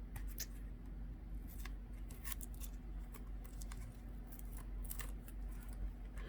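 Faint, scattered light clicks and ticks of small tablet parts and tools being handled, over a steady low hum.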